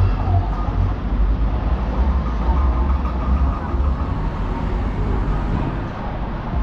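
Street ambience with a steady, fluctuating low rumble, typical of nearby traffic passing on a town-centre street.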